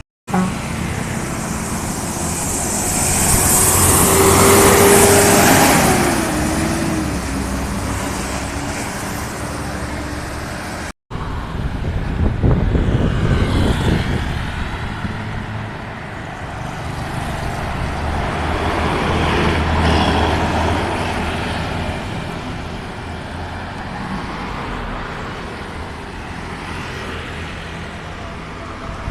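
Road traffic: several motor vehicles passing close by one after another, swelling and fading about five, thirteen and twenty seconds in. The sound cuts out abruptly for a moment about eleven seconds in.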